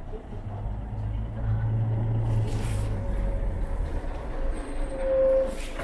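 Large intercity coach driving slowly past at close range, its engine giving a low rumble that is loudest a second or two in. There are short hisses twice, and a brief high squeal just before the end.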